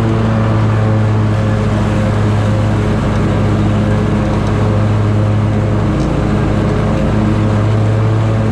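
Scag Tiger Cat zero-turn mower's engine running steadily while the blades of its 61-inch deck cut grass, heard up close from the operator's seat: a loud, even drone.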